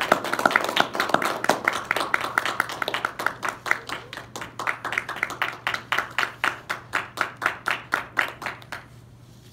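A small group applauding: brisk clapping that thins out into scattered, slower claps and dies away about nine seconds in.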